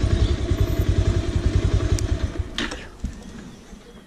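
Bajaj Pulsar 180's single-cylinder four-stroke engine idling with a rapid low pulse, then shut off with a click about two and a half seconds in, its running fading away.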